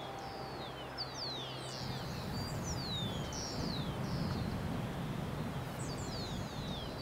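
Birds chirping: many quick, high calls that sweep downward, often overlapping, over a low rumble. A steady low hum stops about two seconds in.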